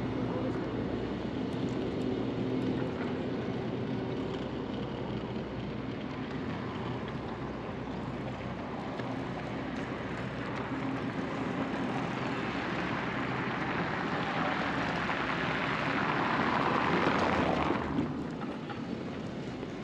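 City street traffic: a steady engine hum, then vehicle noise that swells over several seconds and cuts off abruptly near the end.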